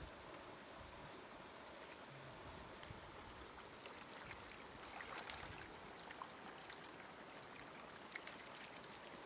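Faint splashing and wet slaps of hands grabbing catfish in shallow muddy water in the bottom of a wooden canoe, over a steady hiss, with a brief flurry of splashes about five seconds in.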